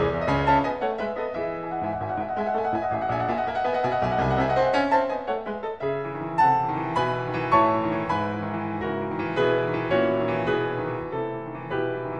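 Background piano music with held chords.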